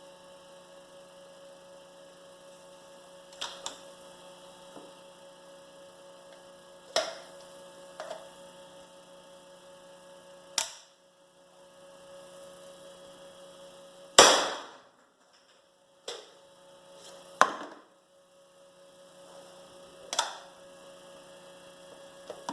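A steady electrical hum, broken by a series of sharp mechanical clicks and knocks from the handling of a 3D-printed 37mm single-shot launcher. The loudest is a short burst about fourteen seconds in.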